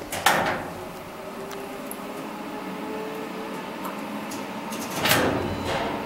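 Lift car of a 1929 Titan elevator, modernised by KONE, travelling down: a sharp clunk just after the start, a faint steady hum while it runs, then a louder rushing knock about five seconds in.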